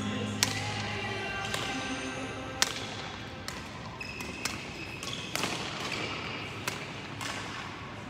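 Badminton rackets striking a shuttlecock in a rally, about one sharp crack a second and the loudest some two and a half seconds in, echoing in a large hall, over background music.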